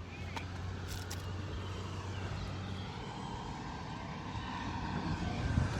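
Road traffic on a highway: a steady low hum of vehicle engines and tyres, with a vehicle growing louder near the end.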